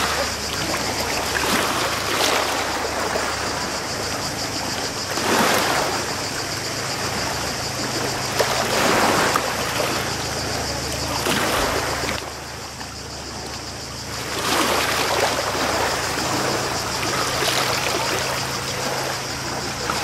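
Small sea waves washing against the shore and jetty, a watery wash that swells every few seconds.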